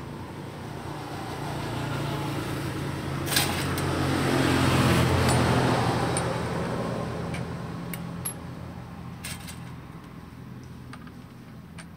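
A motor vehicle engine passing by, swelling to a peak about halfway through and then fading, with a few sharp clicks.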